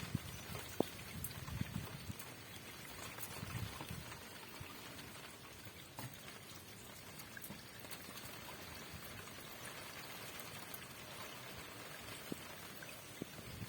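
Rain falling steadily, with scattered drops ticking close by and running water. Wind gusts give a low rumble in the first few seconds.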